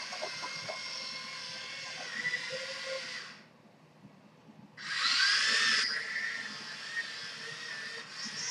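Dagu RP5 tracked robot chassis driving on a hard floor, its small electric gear motors and tracks whining. The motors stop for about a second and a half just past the middle, then start again louder with a rising whine. Their speed follows the tilt of the controlling phone.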